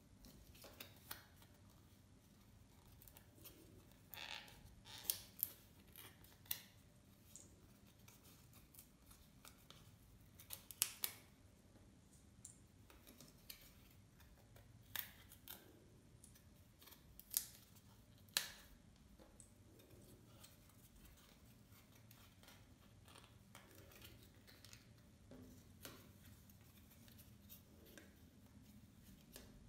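Foam-board puzzle pieces handled and slotted together on a tabletop: scattered sharp clicks and short scrapes at irregular intervals, mostly in the first two-thirds, over a quiet room.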